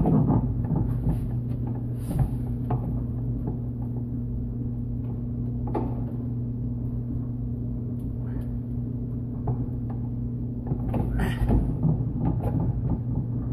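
Scattered knocks and clatters of handling over a steady low hum.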